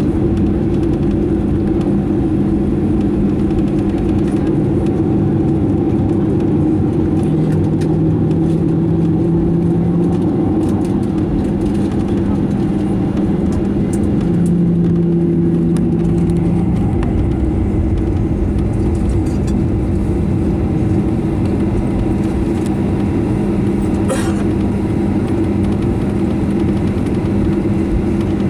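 Cabin noise of a Boeing 737-900ER taxiing, its CFM56-7B engines at idle along with the air-conditioning: a loud, steady drone with a few low hums that shift in pitch now and then.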